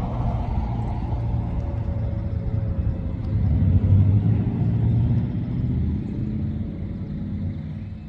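Low rumble of a road vehicle going by, swelling about four seconds in and easing off toward the end. Over it, a faint, slightly falling siren tone dies away during the first half.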